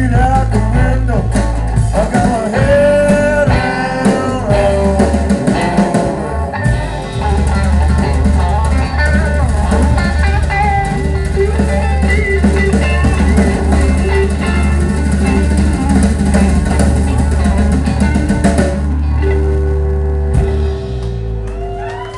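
Live band playing amplified electric guitar, bass guitar and drum kit. About nineteen seconds in the drums stop and the guitar and bass hold ringing notes as the song closes.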